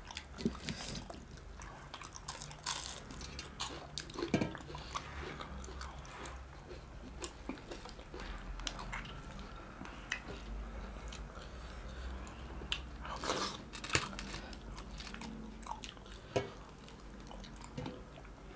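Eating sounds: two people chewing and biting dhido, fish curry and fried fish by hand, with scattered sharp clicks and occasional crunches, a busier cluster a little past the middle.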